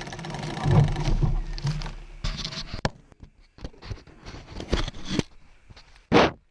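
Close handling noise on an action camera as it is taken off a bicycle frame mount: rubbing and rustling at first, then a run of small clicks and scrapes, with one short louder scrape near the end.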